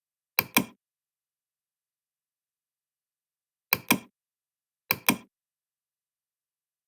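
Three pairs of sharp clicks, each pair two clicks about a fifth of a second apart: one pair near the start, one about three and a half seconds later, and one a second after that, with dead silence between.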